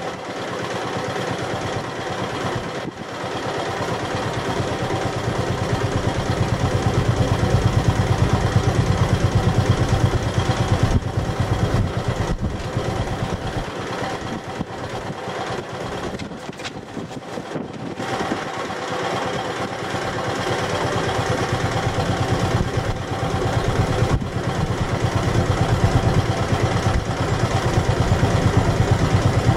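A boat engine running steadily, growing louder a few seconds in, easing off in the middle and building again near the end.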